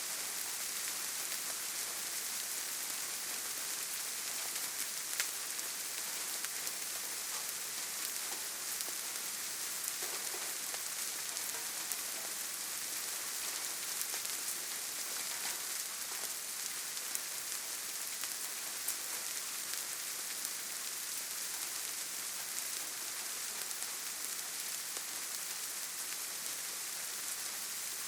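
Steady gentle rain falling, a soft even hiss dotted with the ticks of individual drops and an occasional sharper drop hit.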